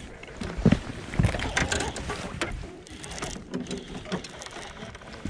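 Irregular knocks, clicks and clatter of fishing tackle and handling in a jon boat as a hooked bass is fought and landed, with a few heavier thumps.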